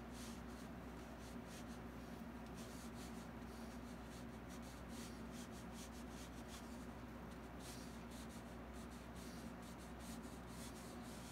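Faint, irregular scratchy strokes of a fine paintbrush on canvas, over a steady low hum.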